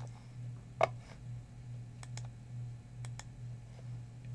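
Computer mouse button clicks, about six in all, the loudest about a second in and two of them in quick pairs, over a steady low hum.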